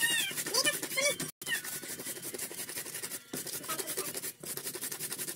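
Papaya being grated by hand on an improvised wooden grater, quick rasping strokes several times a second.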